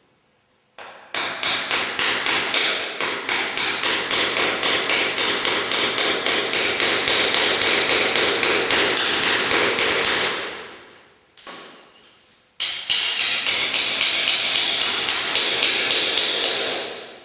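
Rapid, regular hammer strikes, about six a second, in two long runs that break off briefly about ten seconds in.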